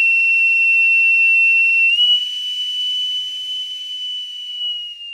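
Boatswain's call (bosun's pipe) sounding one long, clear high note that steps up slightly in pitch about two seconds in, then grows weaker and dies away at the end.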